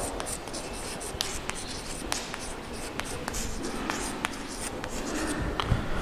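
Chalk writing on a blackboard: a steady scratching broken by irregular sharp taps as the chalk strikes the board.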